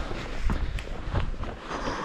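Footsteps on stony ground: three steps, evenly spaced.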